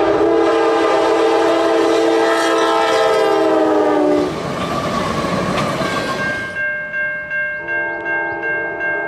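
Nathan K5LA five-chime locomotive air horn blowing one long blast whose pitch sags slightly before it cuts off about four seconds in, followed by the rumble and clatter of the train's wheels passing. About six and a half seconds in, a rapidly pulsing, ringing bell-like tone takes over.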